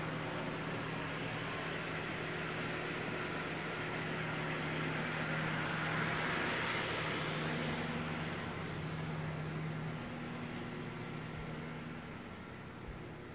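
Steady indoor background noise: a low hum under an even hiss, with the hum stopping about ten seconds in and the hiss fading a little near the end.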